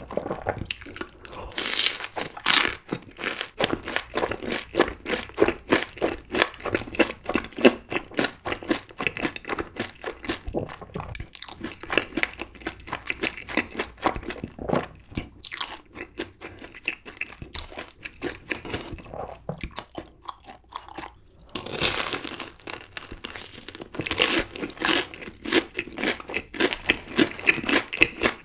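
Close-miked chewing of a fried Korean corn dog with its crisp, sugar-coated batter crust and cheddar cheese sauce: rapid, irregular crunching. It eases off in the middle and grows louder again later on.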